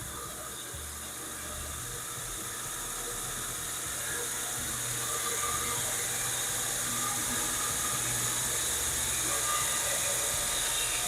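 Bauer 8-inch variable-speed bench grinder driving a 2x48 sanding-belt attachment, running with no load. The belt gives a steady hiss that grows louder over the first half as the speed is turned up, then holds.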